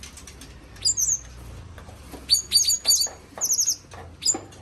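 Small songbirds chirping: short, sharp, high chirps, single ones about a second in, a cluster from about two to three seconds, then a quick run of three and one last chirp near the end.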